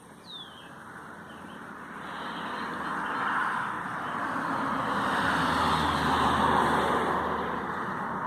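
A vehicle passing on a nearby road, its tyre and engine noise swelling over several seconds and easing off near the end. A single short falling chirp sounds just after the start.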